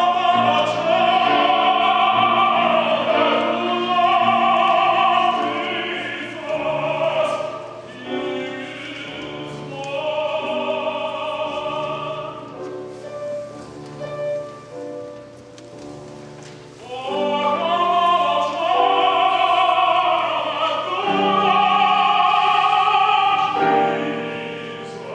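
Solo tenor singing a spiritual in classical concert style, with piano accompaniment and vibrato on the held notes. Loud sustained phrases open the stretch and return in its second half, with a softer passage in between.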